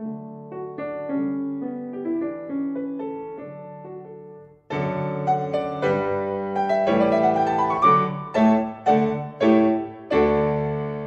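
Solo piano music: a soft melody of single decaying notes, then from about five seconds in louder, fuller chords, with a few strongly struck chords near the end.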